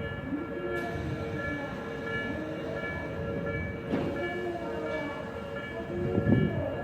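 Railway level-crossing warning bell ringing as a steady electronic tone over the rumble of a passing train, with a brief knock about four seconds in and a louder low thump near the end.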